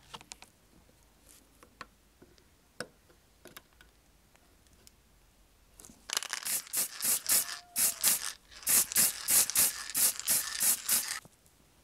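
Faint clicks and taps of small tools on a diecast model car body, then about six seconds in a rapid string of short hissing bursts of aerosol spray paint, two or three a second, that stops abruptly about a second before the end.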